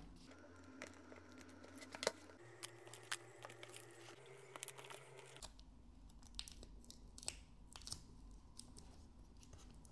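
Faint crinkling and scattered small ticks of clear adhesive tape being handled and pressed down by fingertips along the edge of a leather pouch.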